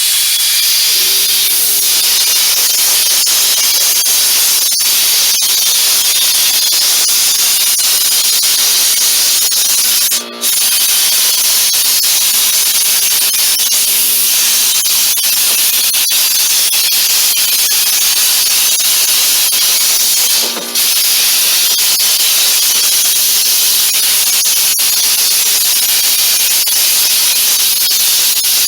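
Air-fed texture spray hopper blowing popcorn ceiling texture onto a ceiling: a loud, steady rush of compressed air, cut off briefly twice, about 10 and 20 seconds in.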